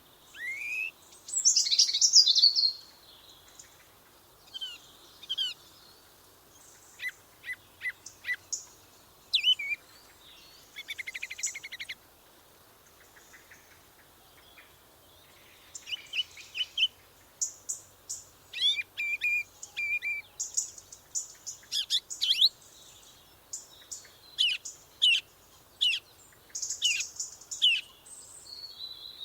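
Songbirds singing and calling: a mix of short chirps, rising whistled notes and rapid trills, the loudest a dense burst about two seconds in. After a lull a little before the middle, the calling grows busier again through the second half.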